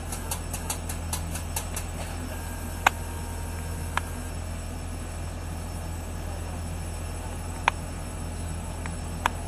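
Steady low hum with a run of quick ticks, about four a second, over the first two seconds. Four single sharp clicks follow spread through the rest, the loudest about three seconds in and near eight seconds in.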